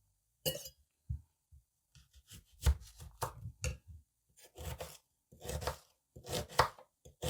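Knife chopping an onion on a cutting board, in irregular strokes, some single and some in quick clusters.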